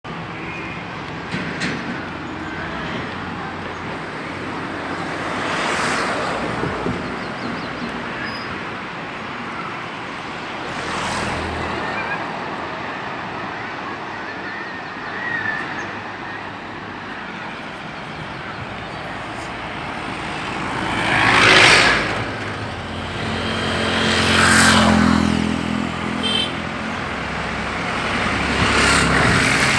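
Road traffic: about five vehicles pass one after another, each swelling up and fading over a few seconds. The loudest passes about two-thirds of the way through, followed by a heavier engine with a low drone, over a steady rushing background.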